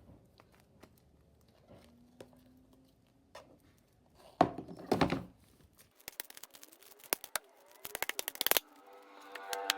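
Hands kneading sticky fluffy slime: scattered sticky clicks and pops, two louder squishes about halfway through, then a quick run of crackling pops as the slime is stretched and folded.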